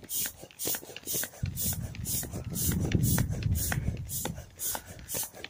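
Hands pressing and rubbing over the inflated PVC vinyl of a pool ride-on to smooth out its creases, giving a low rumbling rustle from about a second and a half in that lasts around three seconds. A faint regular ticking, about three a second, runs under it.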